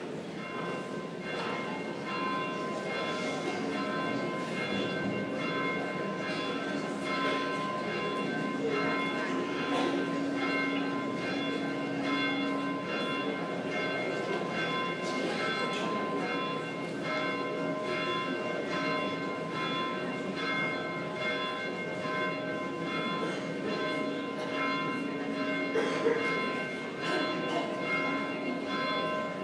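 Church bells ringing continuously, repeated strokes with long, overlapping ringing tones.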